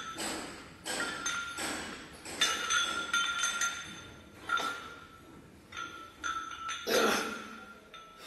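Metal weight plates on a barbell clinking and ringing as the bar is curled up and lowered, with a clink at irregular intervals. There is a louder, fuller clank about seven seconds in.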